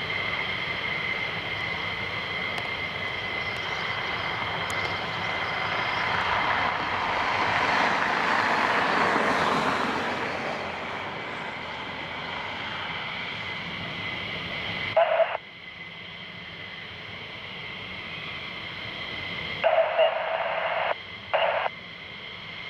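Jet aircraft engine noise swelling to a peak about eight to ten seconds in and then easing off, heard with the hiss and steady whine of an air-band radio scanner. About fifteen seconds in the loud noise cuts off suddenly, leaving fainter radio hiss with a few short clicks.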